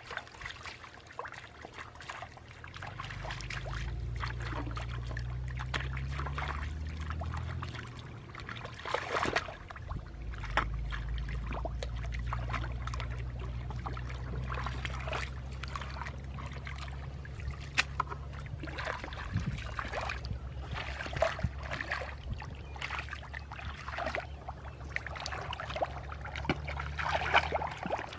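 Shallow muddy water splashing and sloshing as children wade through it and grope in it by hand, in irregular small splashes. Under it, a steady low hum starts about three seconds in and drops out for a moment near the middle.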